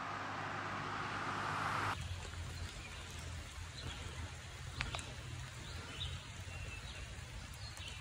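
Outdoor ambience: a steady hiss that grows slightly and cuts off abruptly about two seconds in, then a quieter background with a low hum and faint bird chirps.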